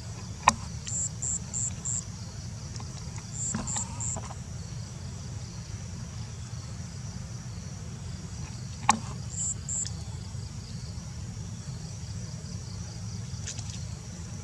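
Insects chirping: a steady high buzz with short repeated chirps in groups of two to four, over a steady low rumble. Two sharp clicks stand out, about half a second in and about nine seconds in.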